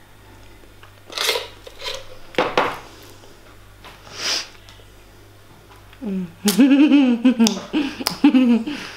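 Three short hissing noises in the first half, then from about six seconds in a girl's wordless voice, wavering up and down in pitch in several short pieces for nearly three seconds, as she tastes dog food.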